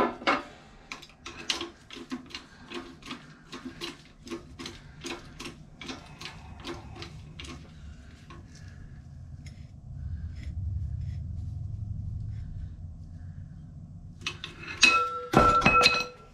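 Hydraulic shop press being pumped by hand to press a cylinder liner into an OM617 diesel block: a fast run of sharp clicks, about two or three a second, from the pump and the liner seating under load. Then a low hum for a few seconds, and two loud metallic clangs that ring near the end.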